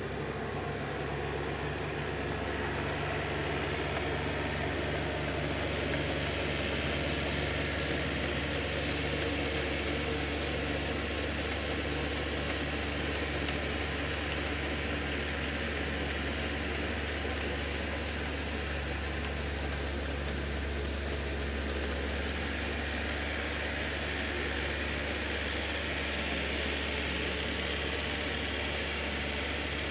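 Compact tractor engines running steadily as the tractors till a flooded rice paddy, a continuous low hum under a steady hiss.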